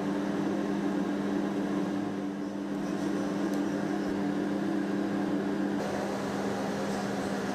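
Steady low machine hum carrying two steady low tones; the higher of the two drops away about six seconds in.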